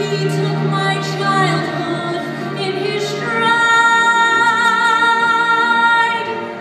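A girl singing solo into a microphone over a soft sustained accompaniment, holding one long high note from about halfway through until near the end.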